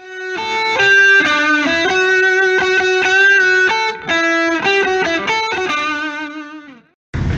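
Intro music: an electric guitar playing a short melody of held notes, fading out near the end.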